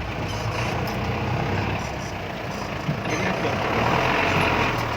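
Toyota 14B truck diesel engine in a Daihatsu Taft 4x4 running at low revs as the vehicle crawls over a steep, rough track. It makes a steady low drone, a little louder over the last couple of seconds.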